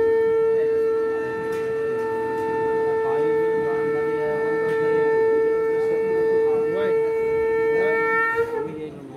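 Conch shell (shankha) blown in one long, steady note that wavers briefly and breaks off near the end.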